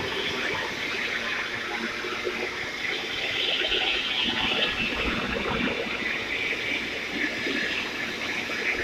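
Steady hiss of an argon TIG welding arc, swelling and easing slightly.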